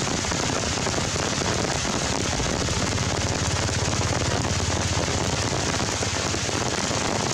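Steady rain falling on forest leaves, an even hiss with no break, with a low rumble between about three and five seconds in.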